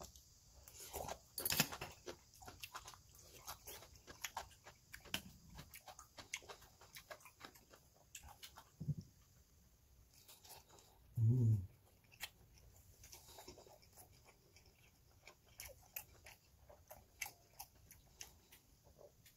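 Close-up mouth sounds of a person eating cold jjajang instant noodles and gimbap: many wet chewing clicks and smacks, with a brief low hum about eleven seconds in.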